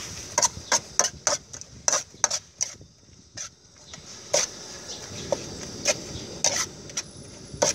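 A metal spatula scraping and clanking against a metal wok as noodles are stir-fried, in quick strokes about three a second with a short pause about three seconds in, over a faint sizzle.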